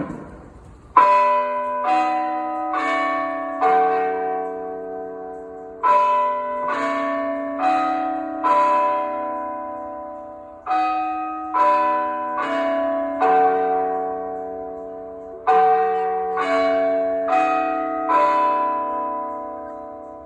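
Electronic alert chime from the ASC I-Force 1600 siren's loudspeakers: sixteen bell-like notes in four phrases of four, each phrase ending on a longer ringing note, before a test voice announcement. A sharp click comes right at the start.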